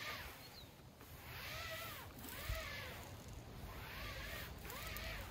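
An applicator pad on an extension pole rubbed back and forth over vinyl RV awning fabric, working in cleaner or protectant. There are about four even strokes, each a swish with a squeak that rises and falls.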